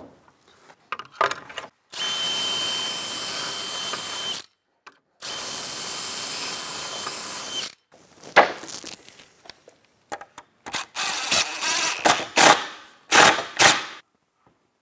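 Drill boring two pocket holes through a board clamped in a pocket-hole jig, each a steady high whine about two and a half seconds long. It is followed by a string of sharp knocks and clatter as the boards are handled.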